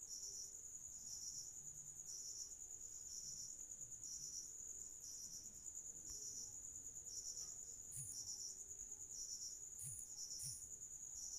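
Crickets chirping steadily in the background: a high, continuous trill with pulses repeating about twice a second. Three faint clicks come in the last few seconds.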